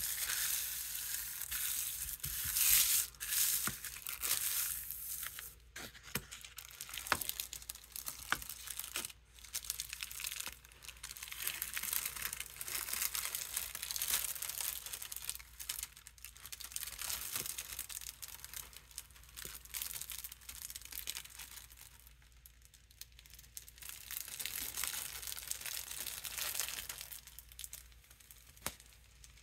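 Thin artist tissue paper being smoothed over and then slowly peeled off a tacky inked gel printing plate: a soft, irregular crackling and crinkling with small ticks. It is loudest in the first few seconds and dies away near the end.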